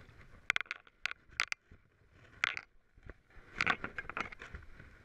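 Fly reel's click drag clicking in short irregular runs as line is pulled or wound, each click ringing briefly, with a busy cluster of clicks near the end.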